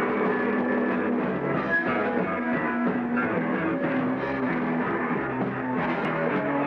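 Rock band playing live, with electric guitar and drums, on a dull old recording with little treble.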